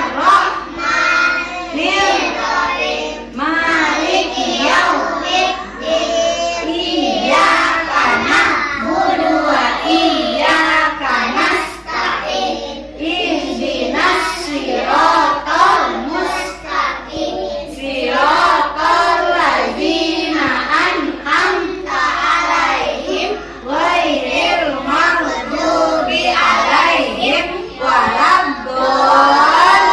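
A group of young children reciting Arabic prayers aloud in unison, in a sing-song chant.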